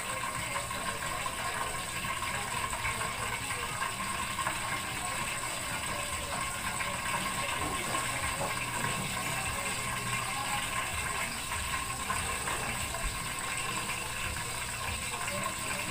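Steady hiss of a portable gas stove's burner with an aluminium pot cooking on it.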